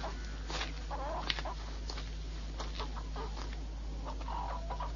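Chickens clucking now and then in short, scattered calls.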